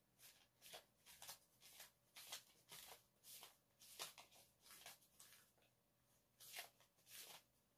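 Near silence with faint rustling from things being handled by hand: about a dozen short, soft swishes at an uneven pace, pausing briefly before two last ones near the end.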